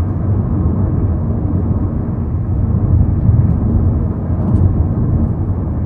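Steady low rumble of a Hyundai Sonata Brilliant on the move, heard from inside the cabin: engine and road noise while driving.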